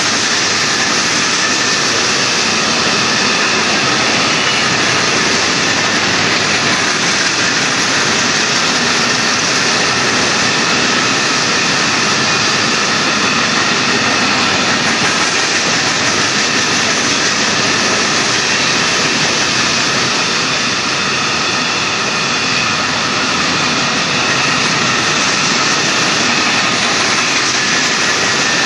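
Empty Union Pacific hopper cars rolling past: the loud, steady noise of steel wheels on rail, holding even throughout.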